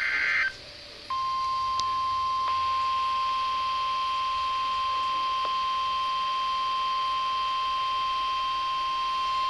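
NOAA Weather Radio alert signals off a receiver. The tail of a SAME digital header burst ends about half a second in. After a short gap, the 1050 Hz warning alarm tone sounds as one steady, unbroken beep, sent with the routine weekly test.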